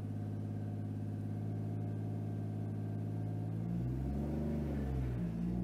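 Toyota Supra MK4's 3.0-litre inline-six engine running, heard from inside the cabin. It holds a steady note, then its pitch swings up and back down about four seconds in.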